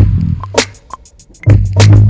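Instrumental hip-hop beat: quick, even hi-hat ticks and drum hits over a deep bass note that hits at the start and again about one and a half seconds in.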